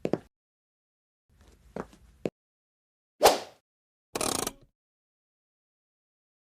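A few short, separate sound effects with silence between them: soft clicks, a sharp hit a little over three seconds in that dies away quickly, then a brief rasping burst about a second later.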